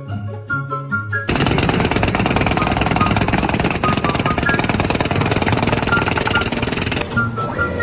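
Loud, rapid mechanical hammering from a power tool such as a jackhammer, starting about a second in and stopping near the end, over background music.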